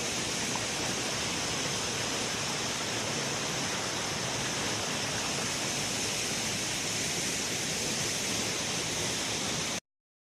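Short waterfall's steady rush of falling water, cutting off suddenly near the end.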